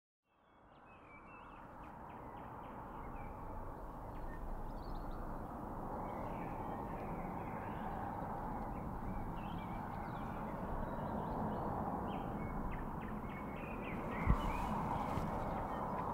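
Urban outdoor ambience fading in from silence over the first few seconds: a steady hum of distant traffic with birds calling, including caws. A sudden low thump about 14 seconds in.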